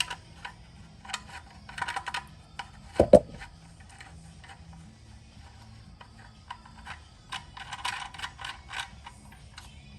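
Metal parts of a camping stove clicking and rattling as its screw-in legs are turned into the body, in irregular little clusters, with one heavier knock about three seconds in.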